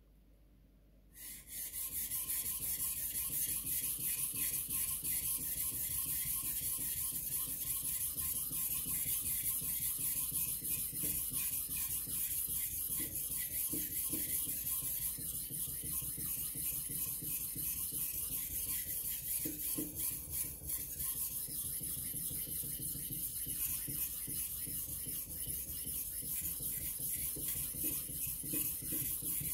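Steel blade of a Takamura Chromax kitchen knife being sharpened on a whetstone: steady back-and-forth scraping of steel on stone, starting about a second in.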